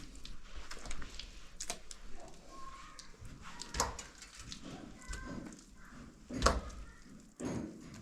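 A few irregular knocks and taps from work on a house door, the loudest about six and a half seconds in, over faint background sounds.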